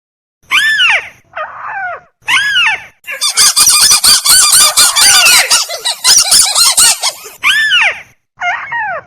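Bird-lure recording of burung tikusan calls, a rail of the crake/waterhen kind: loud, arched, nasal-sounding call notes about half a second long, repeated roughly once a second. From about 3 s to 7 s the calls pile up into a dense, overlapping chatter before single calls return.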